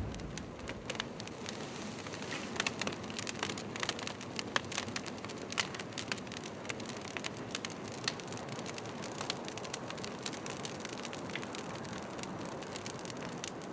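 Pencil scratching on drawing paper close to a cellphone microphone: a steady hiss full of small crackles and ticks.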